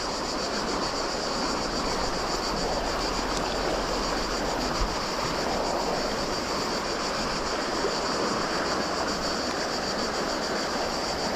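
Steady rushing of river water, with a constant high hiss over it.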